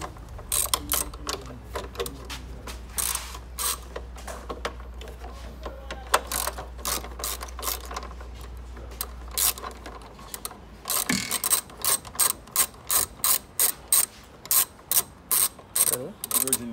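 Hand ratchet wrench clicking as it works a bolt at the A/C condenser, in uneven runs at first. In the last few seconds it settles into a steady series of about three clicks a second.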